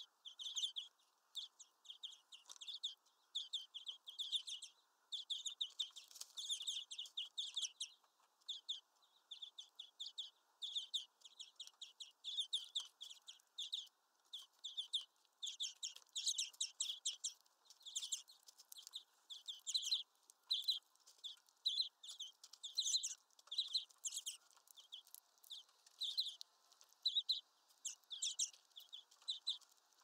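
European greenfinches at a sunflower-seed feeder: a continuous stream of short, sharp, high chips and clicks in quick clusters.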